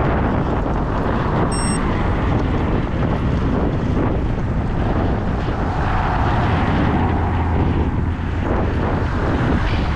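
Wind buffeting the microphone of a camera on a moving bicycle, a steady rushing noise heavy in the low end, with a short high-pitched ring about two seconds in.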